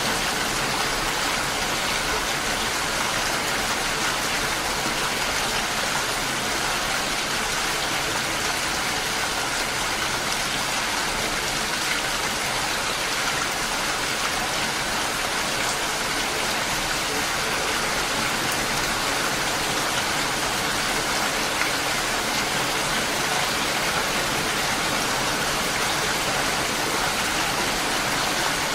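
Steady rain falling, an even hiss of drops on hard surfaces with no breaks or single events.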